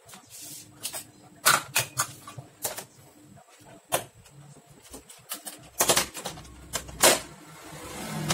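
Clicks and knocks of hard parts being handled as a roller is fitted back into the fixing unit of a photocopier: a dozen or so sharp, irregular taps, the loudest two near the end about a second apart.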